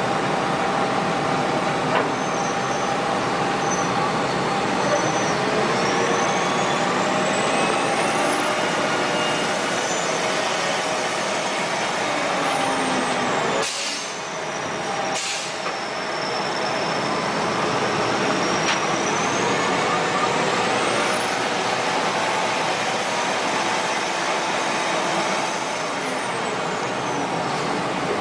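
Heavy diesel wheel loaders running under load, a steady loud engine and machinery noise with faint high whines rising and falling; the sound dips briefly about halfway through.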